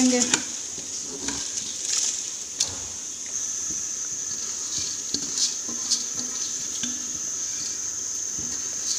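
Dry rice poured from a bowl into a pot of boiling water: a steady rushing hiss of grains falling into the bubbling liquid, with a few light knocks.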